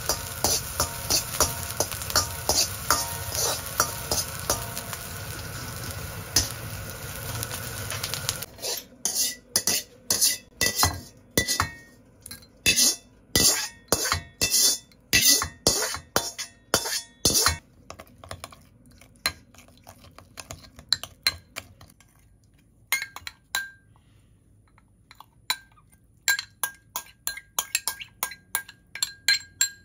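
Scallions and chili sizzling in hot oil in a steel wok, with a metal ladle scraping and tapping the pan. About eight seconds in the sizzle stops, and a metal spoon clinks against a glass bowl, about two to three times a second, stirring the dressing. Near the end come lighter clinks on glass with a brief ring.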